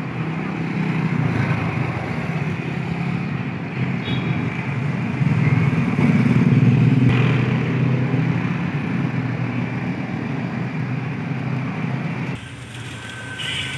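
Road traffic, mostly motorbike engines, running past on the street. It swells about halfway through and drops away abruptly near the end.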